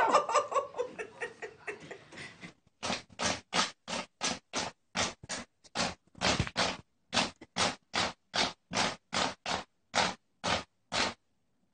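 A cat's paw batting at a small webcam, making an even run of about twenty short scratchy taps, two to three a second. The taps start about three seconds in and stop shortly before the end.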